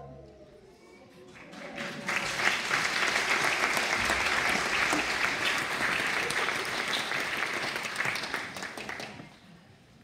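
Theater audience applauding, many hands clapping together; it builds up about two seconds in, holds steady, and dies away near the end.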